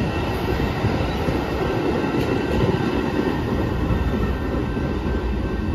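Metra commuter train's stainless-steel bi-level passenger cars rolling past on the rails: a steady rumble of wheels on track with faint, steady high tones over it.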